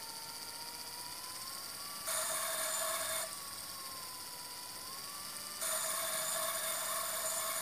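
Small battery electric motor of an LE Models Italo AGV 575 toy train's power car running with its wheels spinning off the track, a thin whine rising and falling as the remote's throttle is moved. At full speed the train's built-in sound effect comes in as a louder buzzing hiss: once for about a second, about two seconds in, and again from about five and a half seconds on.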